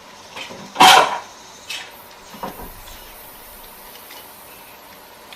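Eating sounds at the table: one loud, short rush of noise about a second in, then two fainter ones.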